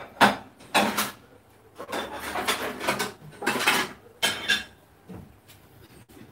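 Dishes and cutlery being handled at a kitchen counter: a few sharp knocks in the first second, then spells of scraping and clattering.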